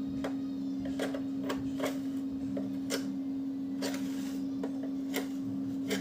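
Sharp plastic clicks and taps at irregular intervals, about one a second, as the sockets of a switchboard are checked one after another with a line tester, over a steady low electrical hum.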